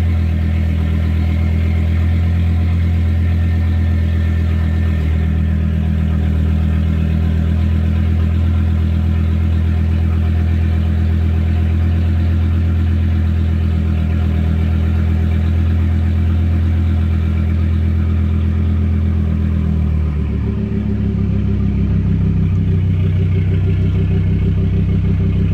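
Volvo S60 R's turbocharged 2.5-litre five-cylinder idling through a straight-piped 3-inch exhaust with a race cat and no muffler, after a cold start. The note is steady. About twenty seconds in, the idle shifts down and settles.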